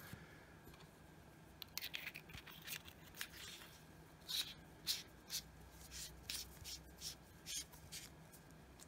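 Faint handling sounds of an aluminium Convoy S3 flashlight as its tail cap is screwed back onto the body: scattered light scrapes and small clicks at an uneven pace, starting about two seconds in.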